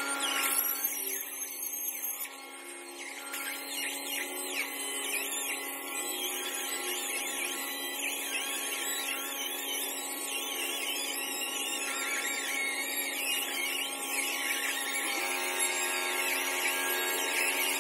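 Handheld stone polisher with a pad running against the edge of a granite sink cutout, its whine wavering up and down as it is worked along the stone.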